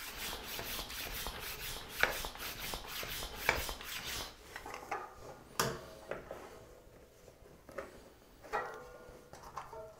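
Small hand pump being worked quickly on a Presta-valve fat-bike inner tube, a fast even run of rasping strokes for about four seconds. Then the strokes stop, and scattered clicks and handling noises follow as the pump head is worked at the valve.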